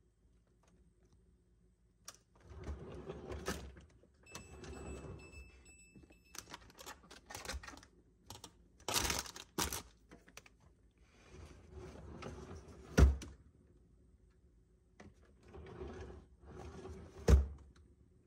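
Kitchen handling sounds: rustling alternating with sharp thunks and clicks as containers and produce are moved and set down, the two loudest knocks near the middle and near the end.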